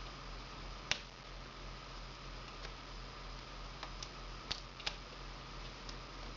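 A few small, sharp clicks and taps from hands working the tape and video-cable connector on the back of a laptop LCD panel, the sharpest about a second in, over a steady low hum and hiss.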